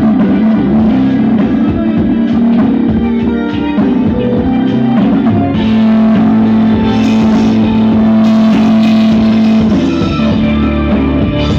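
Loud rock music with guitar and drums, played as a sound test through a 5200-transistor amplifier board driving dual woofers. About five and a half seconds in, the music grows fuller, with a held low note.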